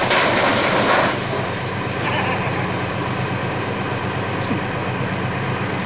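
Tractor engine running steadily, cutting in suddenly and loudest in the first second.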